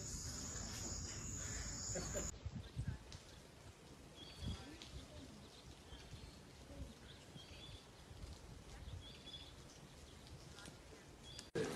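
Outdoor ambience from the field recordings: a steady high trill of crickets or other insects for the first two seconds. After a cut, a quieter background follows with short repeated bird chirps and low rustling.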